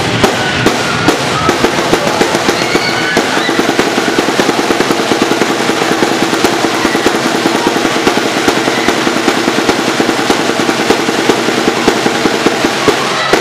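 Cheerleading drums beaten in fast rolls and sharp hits, several strokes a second, over the steady noise of a large crowd.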